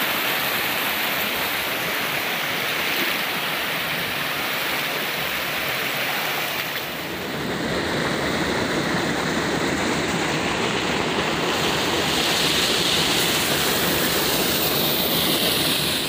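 Rushing water of a small waterfall and rocky stream, a steady rush of whitewater over boulders. About seven seconds in it shifts to a fuller, deeper rush.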